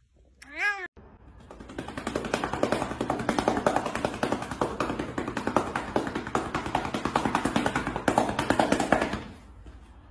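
Fast, steady patting taps, many a second, of a hand patting a cat's back near the base of its tail; they stop near the end. A short cat meow comes just before the patting starts.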